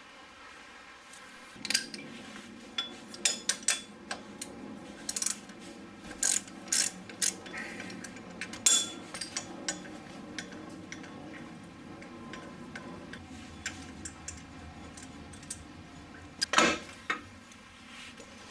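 Hand tools clicking and clinking irregularly against the bolts and metal bracket of a VW VR6's power steering pump as it is unbolted, with one louder clank near the end.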